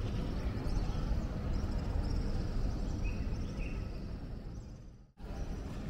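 Outdoor ambience: a steady low rumble with a few faint high chirps. It drops out for a moment about five seconds in, then resumes.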